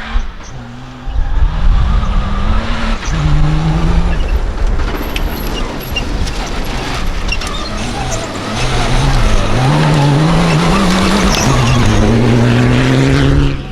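Rally vehicle's engine at full throttle, its pitch climbing and dropping several times as it shifts through the gears, then holding high and loud for the last few seconds before cutting off.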